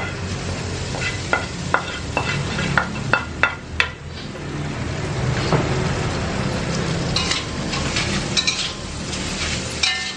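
Cooked rice sizzling as it fries in a hot wok, with a spatula scraping and knocking against the pan as the rice is pushed in and stirred. There are several sharp knocks in the first few seconds.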